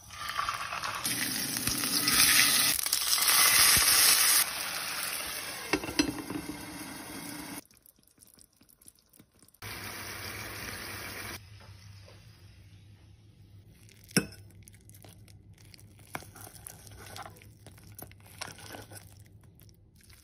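Hot oil in a frying pan sizzling loudly as a knotted piece of washed-flour dough (vegan chicken) is lowered in. The sizzle cuts off after about seven and a half seconds and comes back briefly, then gives way to light clinks and scrapes of a fork shredding the fried dough in a metal bowl.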